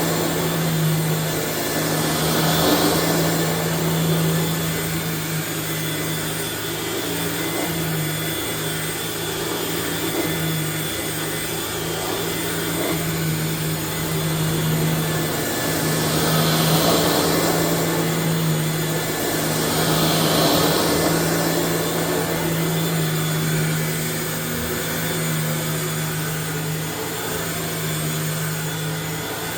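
A 1994 Dirt Devil Broom Vac model 712 stick vacuum running steadily: a constant motor hum with rushing air that swells now and then.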